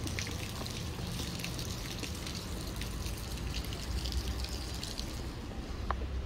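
Splashing water from a kinetic bucket fountain. A low rumble comes in about four seconds in.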